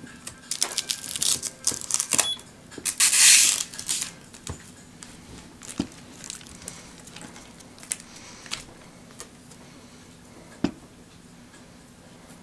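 Handling noise from a small plastic gadget and its packaging: crinkling and rustling with scattered clicks, busiest in a dense crackling burst about three seconds in, then only occasional single clicks.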